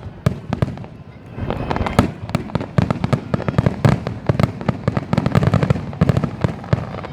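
Fireworks finale: a rapid string of aerial shell bursts with crackling. The bangs come thicker and louder from about a second and a half in.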